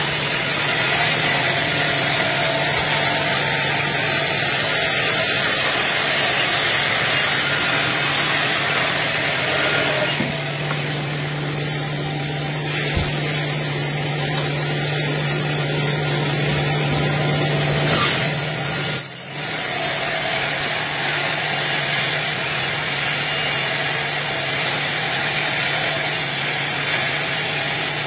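Band sawmill running, its blade cutting lengthwise through a log with a steady mechanical drone. A low hum joins about ten seconds in and stops near the nineteen-second mark, just after a brief louder swell.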